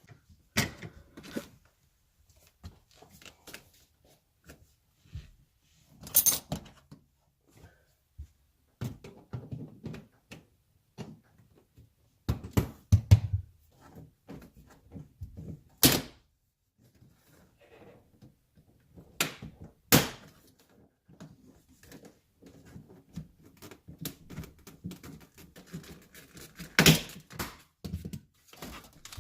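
Irregular knocks, thunks and clatter of interior parts being pulled loose and handled inside a stripped car body, the loudest about 13, 16, 20 and 27 seconds in.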